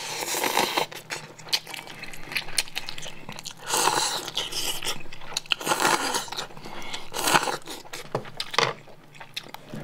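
A person slurping instant ramen noodles close to the microphone, several times, with chewing and wet mouth clicks in between.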